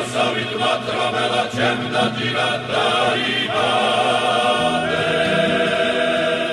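Background music: a choir singing in several parts over a held low bass note.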